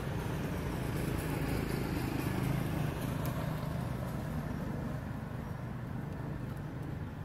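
Steady low rumble of a motor vehicle's engine, swelling about two and a half seconds in and then slowly fading.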